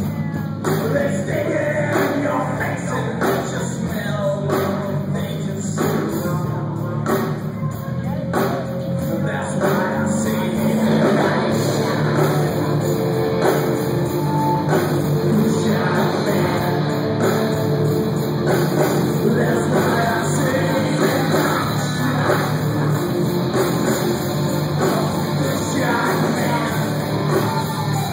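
Live rock band playing: electric guitars, drum kit and a male singer's vocals, loud and without a break.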